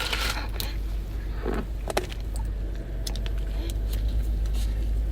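Low steady rumble of an idling car heard from inside the cabin, with a few short rustles and clicks over it.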